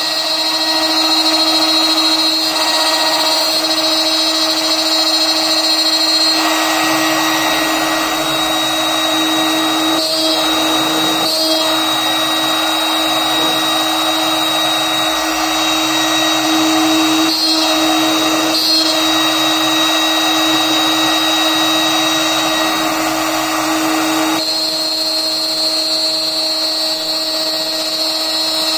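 CNC router's HSD electrospindle running at speed with a steady high whine while drilling into a PVC plate. The cutting noise thickens about six seconds in, dips briefly a few times, and falls back to the plain spindle whine near the end.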